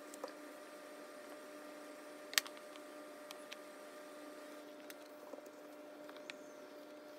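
Faint steady electrical hum, with a few light clicks scattered through it. The sharpest click comes about two and a half seconds in. A higher part of the hum drops out a little after halfway.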